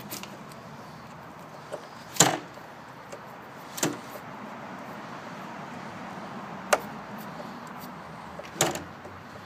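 Tools and lock hardware being handled against a wooden door: four sharp knocks and clacks, the loudest about two seconds in, the others near four seconds, near seven seconds and near the end, over a faint steady hiss.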